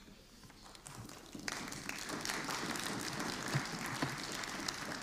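Members of a parliamentary assembly applauding at the close of a speech, the clapping of many hands beginning about a second in and soon filling out into steady applause.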